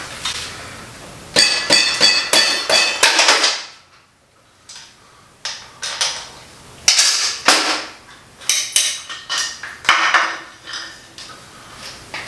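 Rubber mallet knocking on a Harley-Davidson Twin Cam 88's bottom rocker box to break it loose from its gasket: a quick run of sharp, ringing knocks about a second and a half in, then more scattered knocks and metal clinks as the box comes free and is lifted off.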